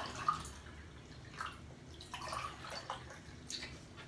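Cutlery lightly tapping and clinking on plates during a meal, a few scattered separate clinks.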